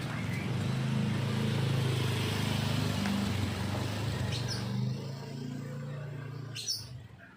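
A motor vehicle's engine running close by, a low hum that is loudest for the first five seconds and then fades. An oriental magpie-robin gives short calls over it, about four and a half seconds in and again near the end.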